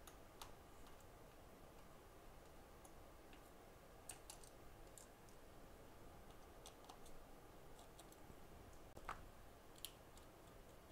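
Near silence, broken by a scattering of faint, light clicks from small tools and phone parts being handled as an iPhone 7 is taken apart.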